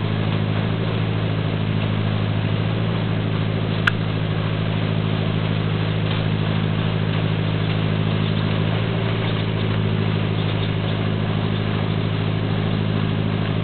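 Aquatic weed harvester's engine running steadily with an even, low hum. There is one sharp click about four seconds in.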